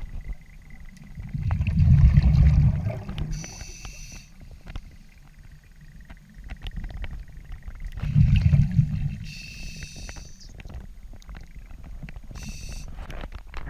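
Diver breathing underwater through an Apeks scuba regulator: two loud rumbles of exhaled bubbles about six seconds apart, each followed by the short hiss of a breath drawn through the regulator, with a third hiss near the end.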